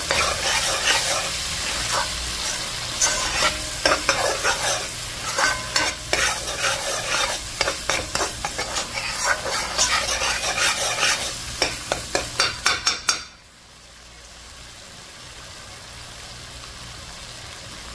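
Metal spoon stirring and scraping through curry sauce in a pot, with many quick strokes over a steady sizzle as the curry base fries, its oil separated. About 13 seconds in the stirring stops suddenly, leaving a softer sizzle and bubbling.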